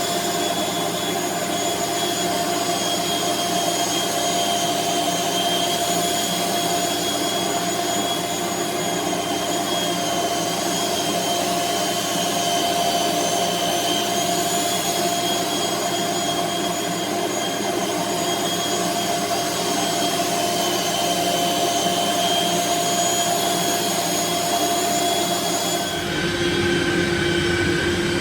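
Makita belt sander running steadily with a high motor whine, sanding wood. About 26 seconds in the whine changes and drops to a lower pitch.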